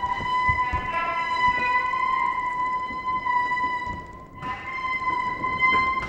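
Free-improvised music: a sustained high tone held steadily at one pitch, with fainter wavering tones above it in the first couple of seconds. It drops away briefly about four seconds in and comes back, over scattered soft low knocks.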